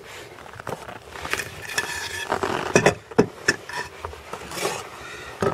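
Handling noise: irregular clicks and knocks with rustling as the camera and its strap are moved about.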